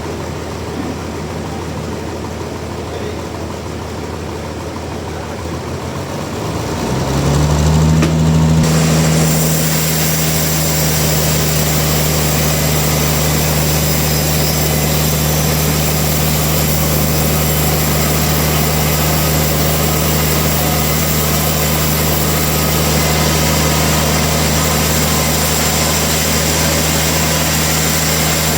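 Sawmill machinery: a low steady hum, then about seven seconds in a motor spins up to speed with a short rising pitch and runs on at a steady pitch.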